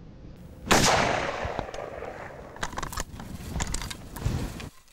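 A single shot from a scoped hunting rifle about a second in, echoing down the valley as it fades over a second or two. A few fainter clicks and knocks follow.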